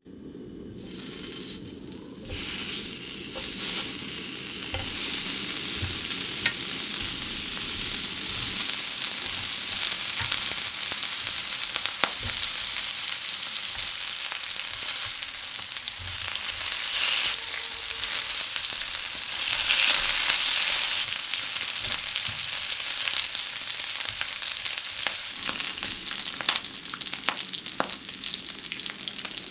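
Pork meat sizzling and frying as it cooks for sekuwa: a steady hiss full of small pops and crackles, building up over the first couple of seconds and swelling now and then.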